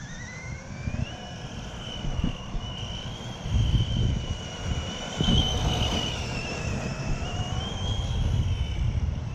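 Electric motor of a Helion Avenge 10MT RC monster truck whining, rising in pitch in the first second, then wavering up and down as the throttle changes while the truck powerslides on dirt. Under it is a low rumble from wind and the handheld camera being handled.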